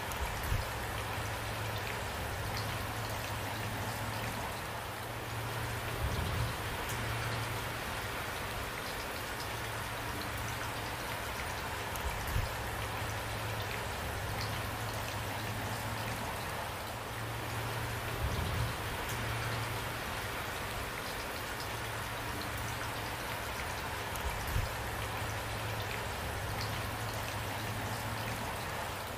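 Steady rain falling, with a low thud about every six seconds.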